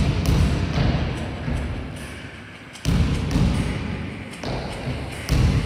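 A basketball hitting the gym floor, three heavy thuds about two and a half seconds apart, each echoing and fading slowly in the large, bare hall.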